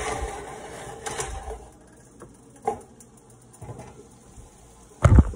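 Kitchen utensils and a frying pan clattering on an electric coil stovetop: a scraping noise for the first second or so, scattered clicks, and a heavy knock near the end.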